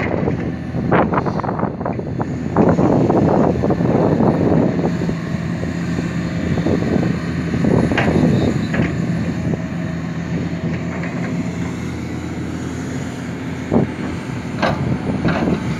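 Hitachi Zaxis 490 LCH hydraulic excavator's diesel engine running steadily under working load while it digs, with a few sharp knocks and clanks now and then.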